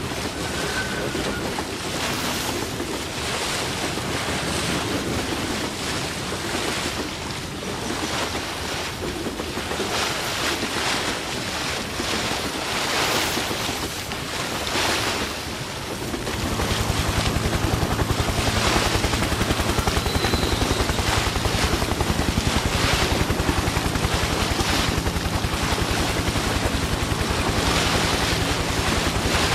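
Rushing, surging noise like surf washing in and out. About halfway through, a steady low mechanical hum with a fast even pulse comes in and stays under it.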